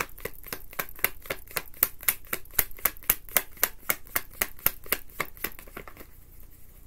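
A deck of tarot cards shuffled by hand, the cards snapping against each other in a quick, even run of about five or six snaps a second that stops about six seconds in.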